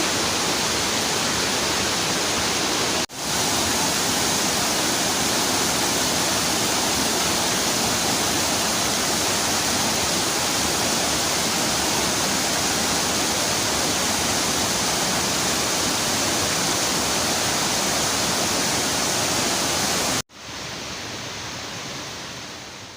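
Waterfall pouring into its pool: a loud, dense, unbroken rush of falling water. It breaks off for a moment about three seconds in. A few seconds before the end it cuts suddenly to a quieter, steady rush.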